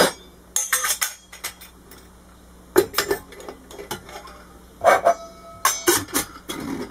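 Stainless-steel parts of a Cadence Picolla CAF-105 electric percolator clinking and knocking as the coffee basket on its stem, the perforated spreader plate and the lid are fitted into the steel pot. The sound is a few separate metal clinks in small clusters, and one knock about five seconds in rings briefly.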